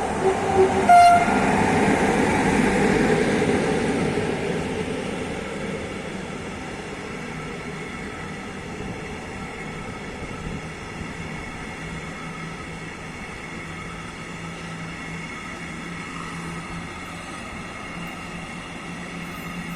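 A train passing, with a brief horn toot about a second in; its rumble is loudest over the first few seconds, then fades to a steady, quieter running sound.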